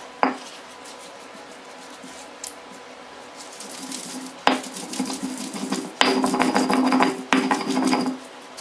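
Stone roller grinding coconut mixture on a flat grinding stone by hand: rough stone-on-stone scraping with sharp knocks as the roller is worked back and forth. It is soft at first, builds about halfway through, and is loudest in the last few seconds.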